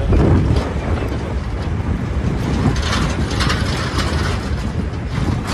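Metal clattering and knocking over a steady low rumble, with a few sharper knocks about three to four seconds in.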